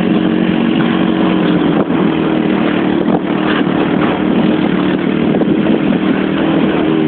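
Quad bike engine running at a fairly steady pitch, under a constant rushing noise with scattered knocks.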